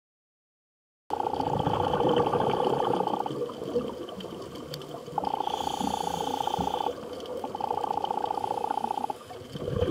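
A scuba diver breathing through a regulator underwater: a buzzing, bubbling rush of about two seconds comes three times, with short pauses between, over a steady underwater hiss. It starts about a second in.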